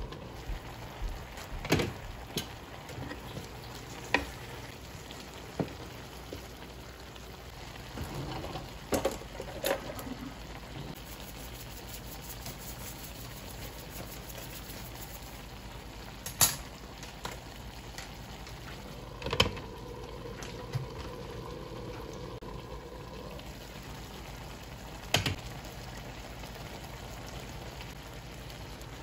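Vegetables and ground meat simmering in a square copper-coloured pan: a steady bubbling hiss. Now and then a sharp clink or knock of the glass lid and a wooden spatula against the pan.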